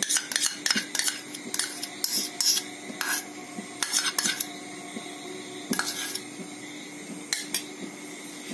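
Steel spoon scraping and clinking against a small steel bowl and an aluminium pan as ghee is scooped out: a quick string of scrapes and clicks that thins out after about four and a half seconds, with a few last taps later.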